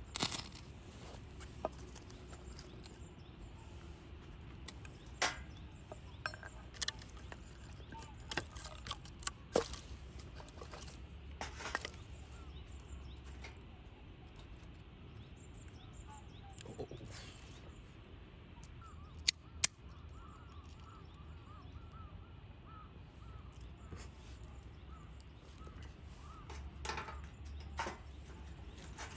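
Scattered light clicks and knocks, with two sharper ones close together about two-thirds of the way through, over a quiet steady background.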